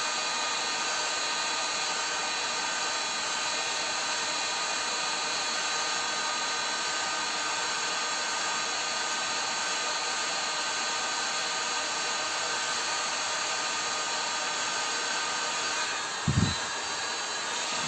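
A corded 2000 W heat gun running steadily, its fan blowing a constant rush of air with a fine whine over it. A short knock comes near the end.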